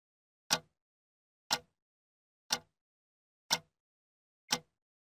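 Wall clock ticking: five sharp ticks exactly a second apart, with dead silence between.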